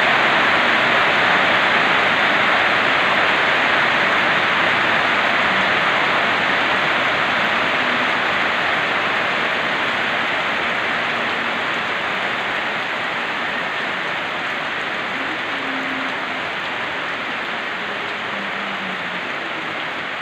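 Heavy rain falling steadily on corrugated metal roofs and foliage: a dense, even hiss that slowly gets quieter.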